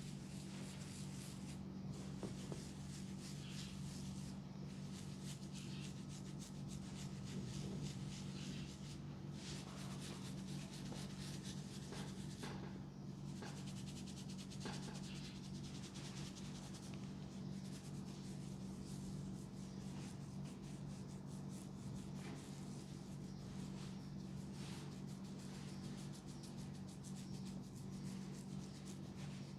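Hands rubbing and kneading over skin and hair during a head and neck massage, a continuous soft scratchy rubbing with small scattered ticks, over a steady low hum.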